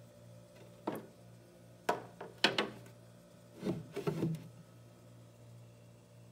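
A handful of short knocks and scraping clatters, like objects being handled and set down, over a faint steady low hum.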